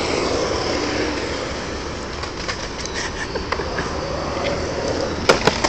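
Skateboard wheels rolling over a concrete bowl, a steady rumbling noise, with a couple of sharp clacks near the end.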